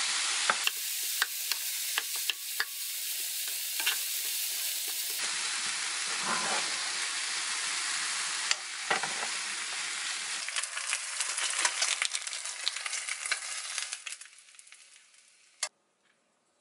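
Kimchi fried rice with chicken breast sizzling in a frying pan while a wooden spatula stirs and scrapes through it, with frequent small clicks and taps. The sizzle fades out near the end, followed by one sharp click.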